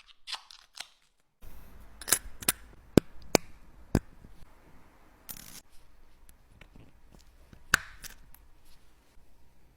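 Sharp, irregular clicks and taps of small tools and parts being handled on a wristwatch during a watch-glass (crystal) repair, with a brief scratchy scrape a little after five seconds in.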